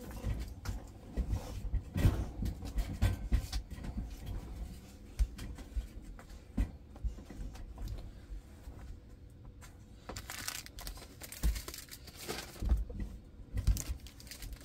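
Plastic kit bags of diamond painting kits rustling and crinkling as they are handled, with scattered light clicks and knocks on a wooden table; the rustling is loudest in two spells near the end.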